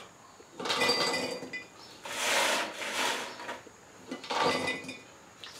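Handfuls of toasted pecans dropped through a plastic funnel into a glass half-gallon mason jar, rattling and clinking against the glass, in three bursts.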